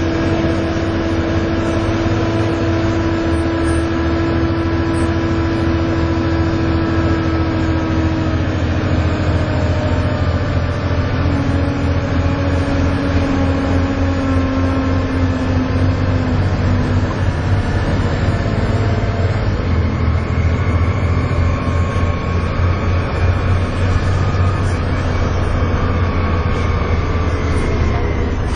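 Volvo B7TL double-decker bus engine, a Volvo D7C six-cylinder diesel, working hard under heavy throttle with a steady vacuum-cleaner-like whine (the 'hoover'). The whine is held for several seconds and drops in pitch about eight seconds in; later, higher whines rise and fall over the engine's rumble.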